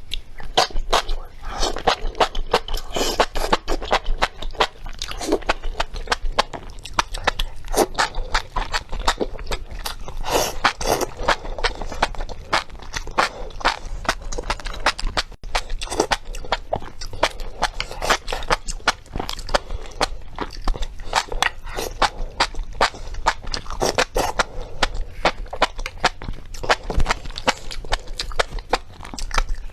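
Close-miked chewing of spicy enoki mushrooms: a dense, continuous run of short mouth clicks and smacks.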